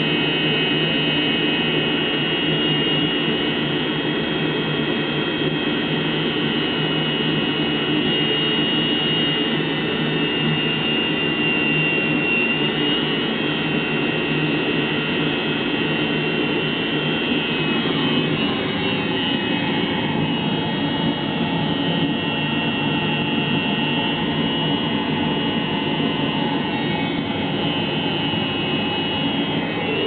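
Eberspächer Hydronic D5WZ diesel water heater running on a bench test: a steady roar from the burner and combustion-air fan, with a high whine that shifts a little in pitch now and then.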